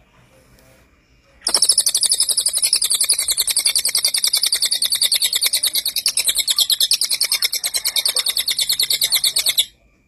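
A cililin singing a long, fast, even run of sharp high notes, starting about a second and a half in and cutting off near the end.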